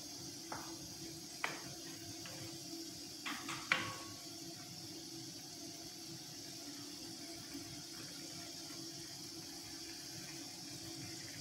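Beef and broccoli cooking in a pan: a steady hiss with a low hum under it, and a few light clicks of a utensil against the pan in the first four seconds.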